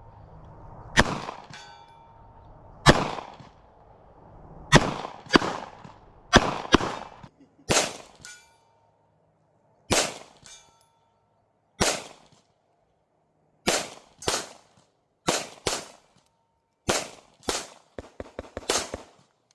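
Gen 6 Glock 17 9mm pistol firing about seventeen single shots at an irregular pace, some in quick pairs and others a second or two apart. A faint ringing tone hangs after some of the shots.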